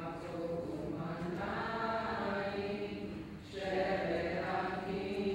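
A boy's voice chanting a scripture reading in sung recitation, holding long notes, with a brief break about three and a half seconds in.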